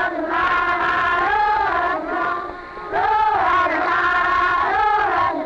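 Young children singing a song together in unison, high clear voices in sung phrases with a short breath about two and a half seconds in.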